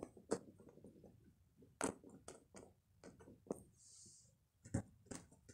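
Scattered soft clicks and scratches on carpet, several in all at irregular gaps of about half a second to a second and a half, with a short soft hiss about four seconds in.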